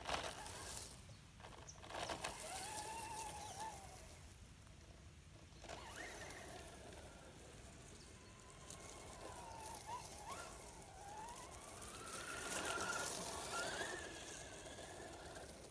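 Whine of the Tamiya Super Levant XB's brushless electric motor, rising and falling in pitch again and again as the RC truck speeds up and slows across the grass. It grows louder near the end as the truck comes back.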